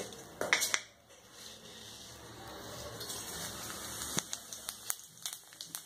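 Cumin seeds sizzling in hot oil in a kadai: a few sharp clicks as the seeds go in about half a second in, then a soft hiss that builds, with scattered pops and crackles toward the end.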